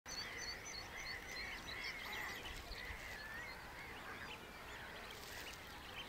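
Wild birds calling: many short calls repeated in quick succession, overlapping one another, busiest in the first half, over a faint steady hiss of open-air background.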